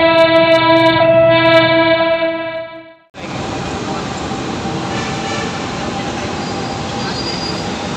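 A train horn sounds one long steady blast that fades out about three seconds in. It is followed by a steady wash of city traffic noise from the road below the elevated tracks.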